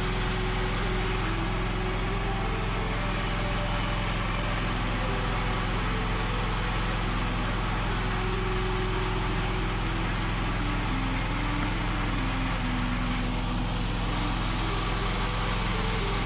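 Steady low machine hum with fainter pitched tones shifting above it.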